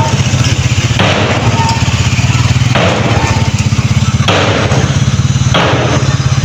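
Diesel engine of heavy earthmoving equipment running steadily, with a rushing noise swelling in four times, about every second and a half.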